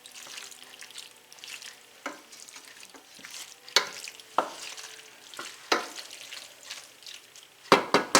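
A hamburger and pasta mixture sizzling in a pan on medium heat while it is stirred. A utensil knocks and scrapes against the pan several times, in a quick cluster near the end.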